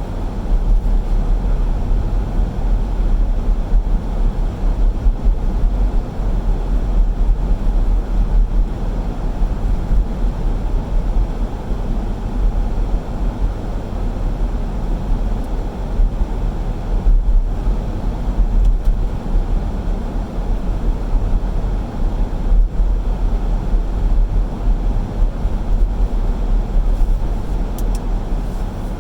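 Car driving: a steady, even rumble of road and engine noise, strongest in the low end, with no changes.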